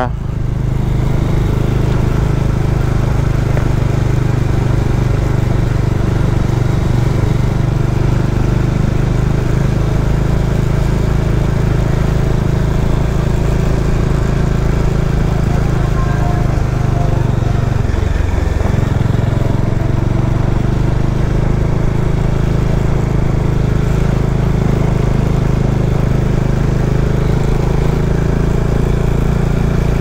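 Bajaj Dominar 400 motorcycle's single-cylinder engine running steadily while riding, with a brief dip in engine pitch about eighteen seconds in.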